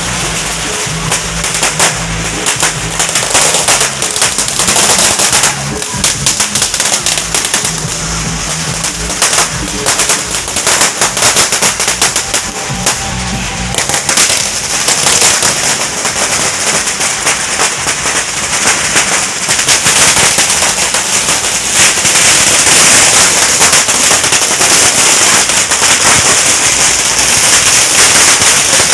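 Long strings of Chinese firecrackers going off in a continuous, dense crackle of rapid bangs, growing denser in the second half. Music plays underneath for about the first half.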